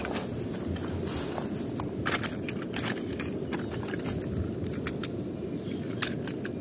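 Die-cast metal toy cars clicking and clattering against each other as a hand rummages through a cardboard box of them, a sharp click every second or so, over a steady low rumble.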